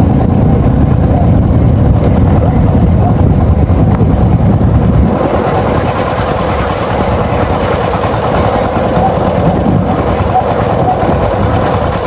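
A motor engine running steadily, with a large flock of ducks calling over it; the ducks' clamour grows denser about halfway through.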